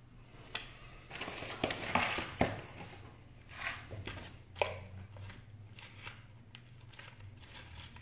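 Crinkling and rustling handling noise with several sharp clicks, busiest in the first five seconds and fainter ticks after, over a steady low hum.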